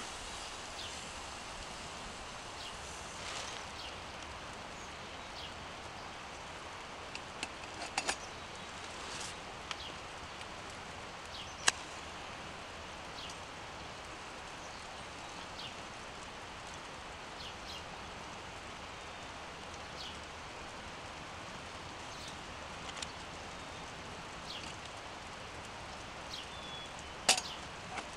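Steady outdoor background hiss with scattered sharp clicks and light metallic ticks, the loudest about 12 seconds in and two near the end. The clicks near the end come from handling a red tin hurricane lantern as it is lit.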